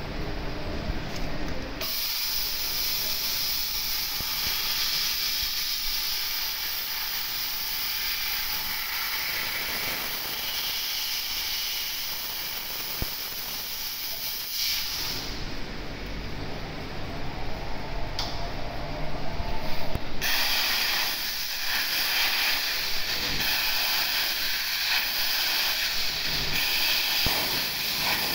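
Steady hiss of assist gas jetting from a robot-mounted laser cutting and welding head working on metal parts. The hiss changes abruptly a few times, about two, fifteen and twenty seconds in, and a low rumble runs under it near the start.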